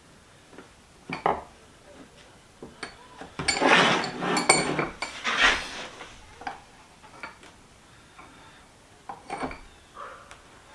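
Steel vise parts and tools clinking and clanking as they are handled on a workbench: a few separate knocks, then a busier stretch of rattling clatter a few seconds in, then a few more scattered clinks near the end.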